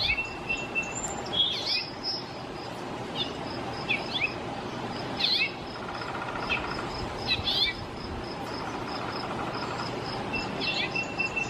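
Recorded bird calls: short, sharp chirps, some sweeping down in pitch, every second or two, over a steady, rapidly pulsing high insect trill.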